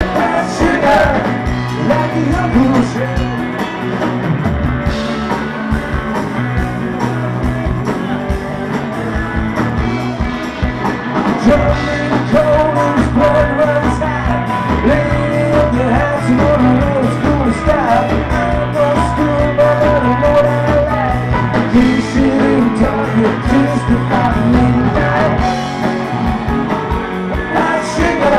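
Live rock band playing: a man singing over electric guitars and drums, with a steady low line underneath.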